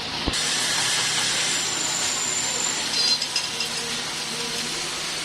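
Steady hissing machine-shop noise, with a sharp click just after the start, a faint high whine for about a second near the middle, and a few light metallic clicks around three seconds in.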